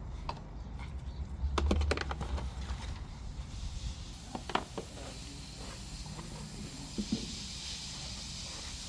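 Scattered clicks and knocks of a plastic gear-oil pump kit being handled and fitted together, a cluster of them a couple of seconds in, over a steady hiss that grows louder about halfway through.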